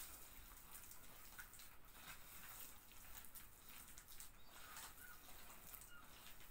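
Faint sounds of sugar and margarine being stirred together by hand, barely above room tone, with a few soft scrapes.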